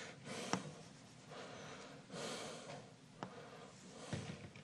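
Chalk on a blackboard: faint scratching strokes and a few sharp taps as marks are drawn, with a man's breathing.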